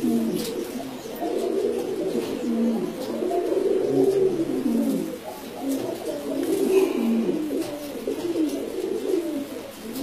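Sobuj Gola Barba pigeons cooing almost without pause, their wavering calls overlapping. It is the courtship coo of a male that is puffed up, turning and dragging his fanned tail.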